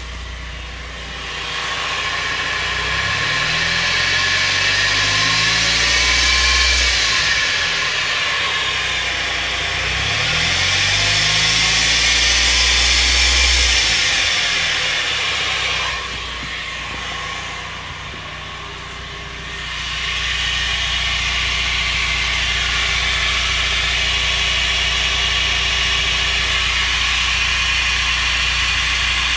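A 2003 Mazda Miata NB's drivetrain running in gear with the wheels spinning off the ground. Speed is brought up and back down twice with a sweeping rise and fall in pitch, then held steady. It carries the speed-related noise the owner suspects is in the transmission, having ruled out wheel bearings and differential oil.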